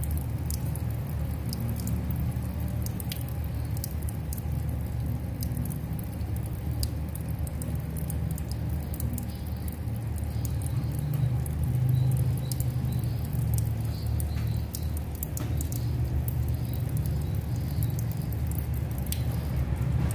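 Thin stream of water running from a tap, with a cat lapping at it and pawing through it: many small irregular patters and splashes over a steady low rumble.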